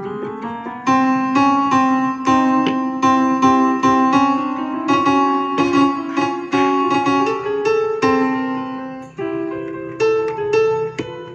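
Music played with a piano voice on a keyboard: a melody of struck notes, about two a second, over held lower chords.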